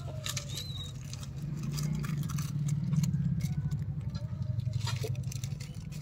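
Scattered small clicks and crackles of gray langurs taking and chewing biscuits handed to them, over a steady low hum that grows louder about two to three seconds in.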